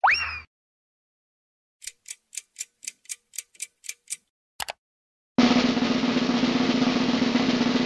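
Cartoon game sound effects: a short rising tone, then a run of about ten quick ticks at roughly four a second and a double click. From about five and a half seconds in comes a steady snare drum roll.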